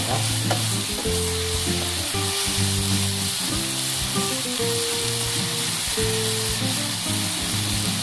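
Beef strips and bell pepper sizzling in a hot non-stick pan as they are stirred and turned with a spatula, with a few scraping strokes. Background music of held low notes plays underneath.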